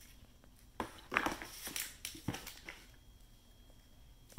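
Two wooden-stocked Lee-Enfield No 1 Mk III* drill rifles being turned over on cardboard. Wood and metal knock and rustle against the cardboard in a run of clunks from about a second in to near three seconds, with another sharp knock at the very end.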